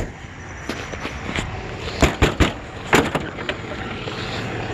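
A few sharp clunks and knocks from handling the broken-down pickup truck, one right at the start, a quick cluster about two seconds in and another a second later, over a steady low rumble.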